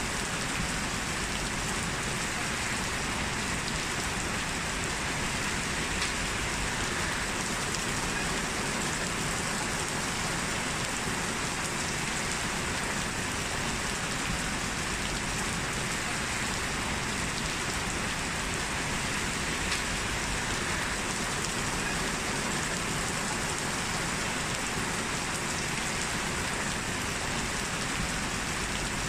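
Steady rain falling and pattering on surfaces, an even continuous hiss with the odd faint drop tick.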